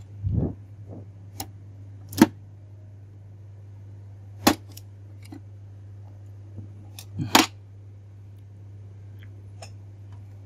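Sharp plastic clicks and snaps from the printhead carriage latch of an HP Ink Tank 315 printer as the tri-colour printhead is unlatched and pulled out. A soft thump comes near the start, then several sharp clicks, the loudest about two, four and a half and seven seconds in. A low steady hum runs underneath.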